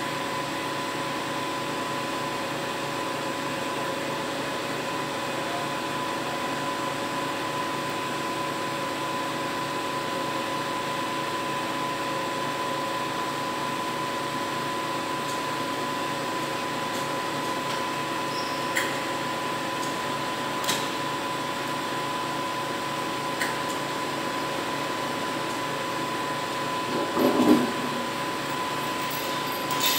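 Truck-mounted crane's drive running with a steady hum and whine while a chain-slung stack of steel test weights is lowered, with a few light clicks and a louder clank of the weights and chains near the end.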